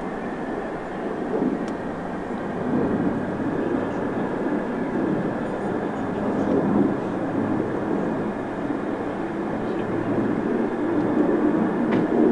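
Airbus A400M's four TP400 turboprop engines with their eight-bladed propellers droning steadily as the transport flies a banking pass overhead, with a steady hum running through the noise. The drone grows a little louder near the end.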